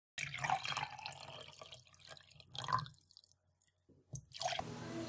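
Energy drink poured from an aluminium can into a glass, the liquid splashing and trickling as the glass fills. The sound drops out completely for about a second after three seconds, then carries on.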